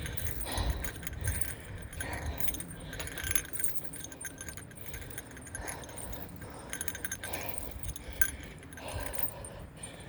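Bear bell jingling continuously with each step, over heavy breathing from the exertion of a steep uphill climb.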